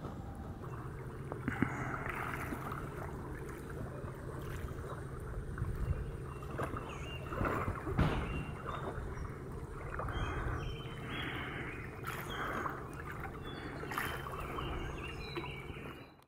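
Kayak paddle strokes, each blade dipping and splashing in the river about every two seconds, over a steady low rumble. The sound cuts off suddenly near the end.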